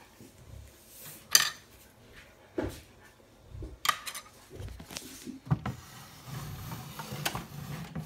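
A toy Miele washing machine being handled and moved on a stone worktop: a series of sharp plastic clicks and knocks, the loudest about a second and a half in. From about six seconds in there is a low rumble as it is shifted and turned.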